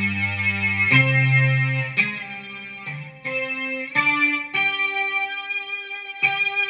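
Guitar played through a BOSS SY-200 synthesizer pedal, giving a sustained synth tone. A series of held notes changes about once a second, then longer notes near the end.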